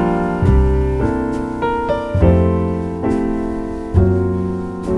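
Background piano music, a new chord struck every second or so over a low bass note.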